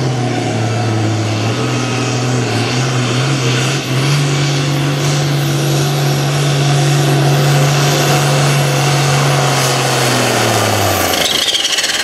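Enhanced farm-class pulling tractor's diesel engine at full throttle, hauling a weight-transfer sled. Its pitch holds steady with a brief dip about four seconds in, then drops and dies away near the end as the pull finishes.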